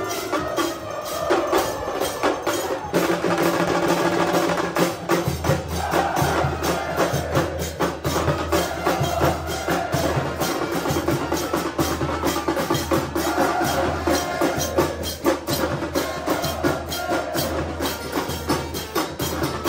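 Football supporters' band in the stand: big bass drums beating a fast steady rhythm and trumpets playing, with the crowd singing a chant along. A deeper bass layer comes in about five seconds in.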